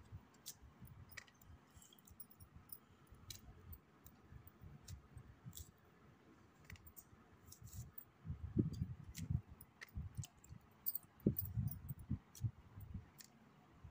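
Small knife cutting fresh okra pods held in the fingers: scattered sharp clicks as the blade snaps through the pods, with clusters of low thumps about two-thirds of the way in and again near the end.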